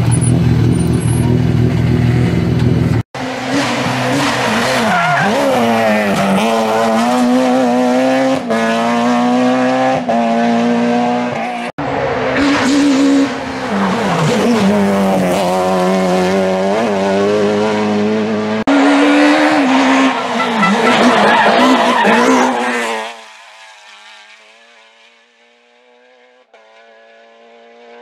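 Peugeot 307 F2000 rally car's engine: a steady low idle for the first few seconds. Then several hard runs in which it revs up and drops back over and over with gear changes, running flat out. Near the end the engine note turns faint and distant.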